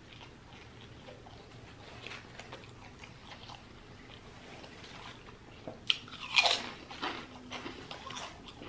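A person chewing food close to the microphone, with louder crunching bites about six seconds in, from salt and vinegar potato chips.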